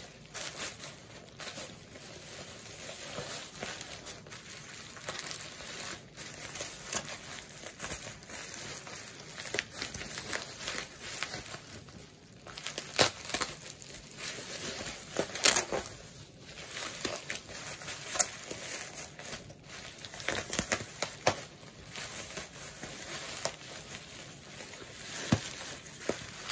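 Bubble wrap and plastic packaging crinkling and rustling as it is handled and pulled off a skateboard deck, with irregular sharp crackles throughout.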